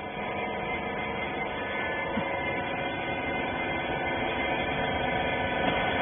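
Hydraulic rag baler's electric motor and pump running with a steady hum, growing slightly louder toward the end.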